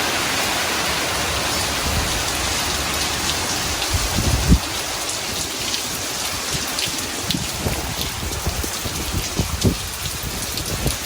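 Heavy summer-storm rain pouring down, a steady hiss with drops pattering close by. A low thump comes about four and a half seconds in.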